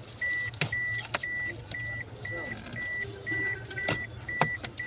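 Car's hazard-light flasher beeping steadily, a high beep about twice a second, with a few sharp clicks from wires being handled and taped.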